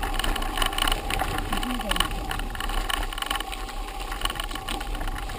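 Mountain bike rolling over a rough dirt track, with a continuous clatter of rattles and knocks from the bike and camera mount bumping over the ground, and a steady rumble of wind and tyre noise.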